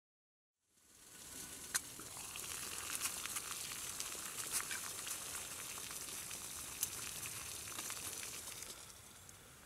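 A pot of water heating on a small camp stove, hissing steadily with scattered ticks and crackles as it comes toward the boil. The hiss fades up about a second in and drops away near the end.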